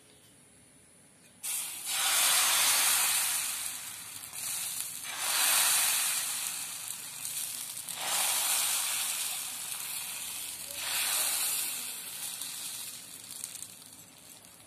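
Rice-flour pancake batter sizzling as it is poured into a hot, oiled non-stick pan. The sizzle starts suddenly about a second and a half in, swells four times as more batter goes in, and dies down near the end.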